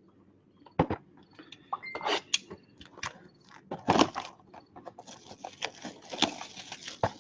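Football trading-card packs being opened and cards handled: a run of sharp clicks and taps, then a stretch of crinkling and rustling of the pack wrappers from about five seconds in.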